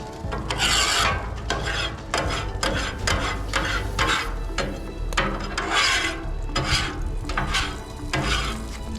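Metal paint scraper scraping across the hot, wetted-down steel top of a Blackstone griddle in repeated strokes, about two a second, with water sizzling on the hot surface.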